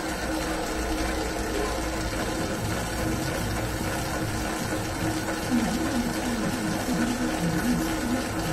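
Famag Grilletta spiral dough mixer running at speed 3: its inverter-driven motor hums steadily while the spiral hook turns and kneads a small batch of dough, with a regular churning from about halfway through.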